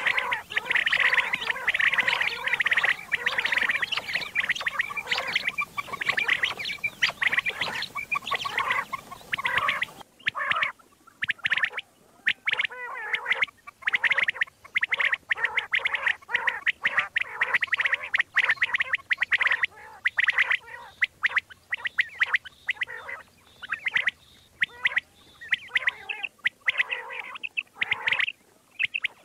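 Recorded common quail calls, many birds calling over one another in fast, repeated notes. About ten seconds in the recording changes and the calls become sparser and more spaced out.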